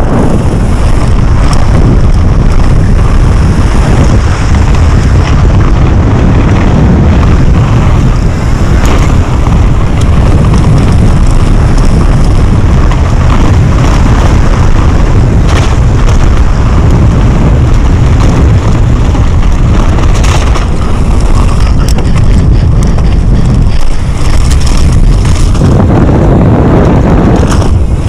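Loud, steady wind noise buffeting the camera's microphone as a downhill mountain bike descends at speed, mixed with tyres running over loose dirt and a few short knocks of the bike over rough ground.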